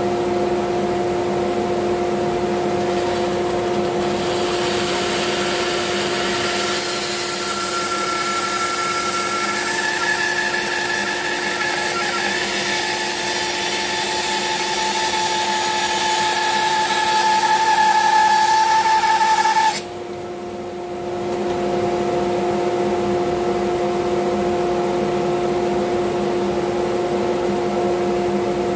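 Bandsaw running with a steady hum while a thick glued-up block of wood is fed through the blade. The cut adds a hiss and a whine that rise slightly near the end, then stop suddenly about two-thirds of the way in as the blade comes free, leaving the saw running on.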